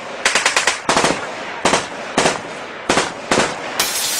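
Machine-gun fire sound effect in short bursts of rapid shots, about seven bursts. Near the end it gives way to a long crash of noise.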